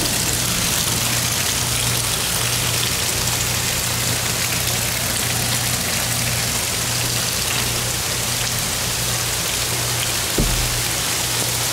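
Steady heavy rain, a constant even hiss, with a low hum beneath it and a single soft knock near the end.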